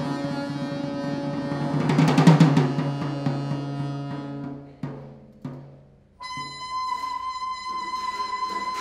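Free-improvised music with saxophone and drum kit: a dense held low drone with drums and a cymbal crash about two seconds in, fading out with two sharp hits. Near the end a steady high held tone begins over light drum patter.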